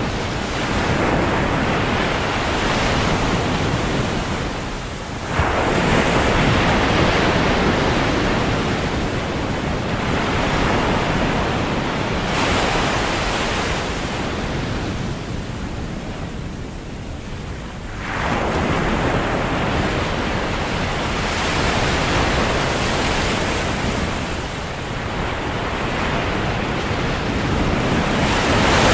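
Ocean surf: waves breaking on a beach, the wash swelling and falling back every several seconds.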